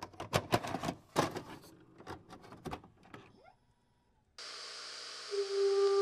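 A videocassette recorder's mechanism clicking and clunking as a tape loads, stopping after about three and a half seconds. After a brief silence a steady videotape hiss begins, and a held musical tone comes in near the end.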